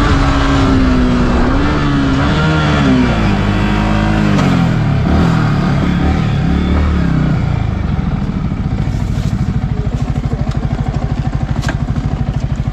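Motorcycle engine running with the revs rising and falling for several seconds. About eight seconds in it drops to a steady, throbbing idle.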